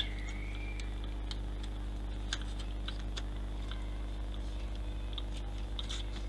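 Scattered light clicks and taps of small hand-held objects being handled at a workbench, over a steady low hum.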